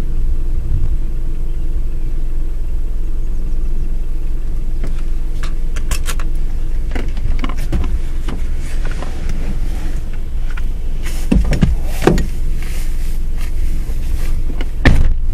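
Car engine idling, heard from inside the cabin as a steady low hum, with scattered taps and a few louder knocks near the end.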